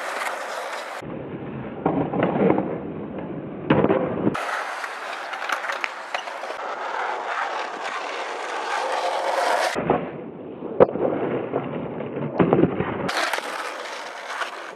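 Skateboard wheels rolling on asphalt and concrete, with sharp clacks of the board popping and landing, the sharpest about eleven seconds in. Two stretches are slowed down and sound deeper and duller.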